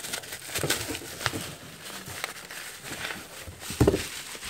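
Handling of unboxed silver bullion and its packing: scattered light clicks and rustling, with one heavier thump near the end as something is set down.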